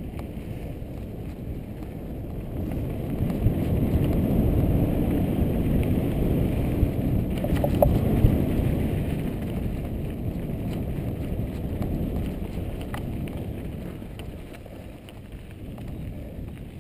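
Wind rushing over the microphone and bicycle tyres rolling over a dirt trail, with a few sharp clicks and rattles from the bike. The rush swells about three seconds in, stays loudest through the middle and eases near the end.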